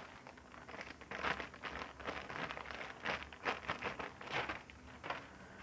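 Clear plastic bag crinkling and rustling in irregular bursts as it is handled and unfolded.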